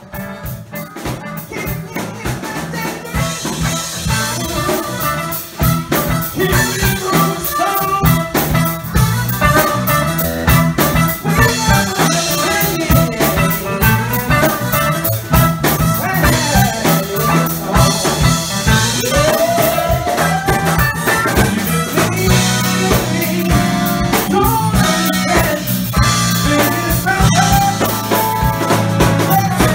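Live band playing Motown-style R&B: drum kit keeping a steady beat under bass guitar, electric guitar and keyboard, with singing. The band grows louder over the first few seconds.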